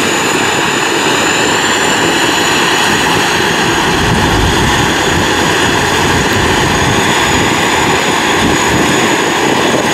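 Sit Charoen Kan Chang rice combine harvester running under load as it cuts and threshes rice: a loud steady engine and threshing drone with a thin high whine held above it.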